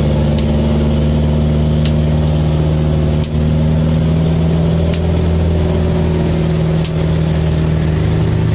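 Boat engine running steadily with a low drone, with short sharp clicks every one to two seconds on top.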